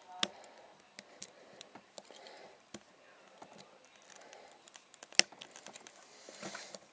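Lock pick and tension wrench working the pin tumblers of a Yale 50 mm padlock, single-pin picking: a string of small irregular clicks and scrapes, with a sharper click just after the start and another about five seconds in.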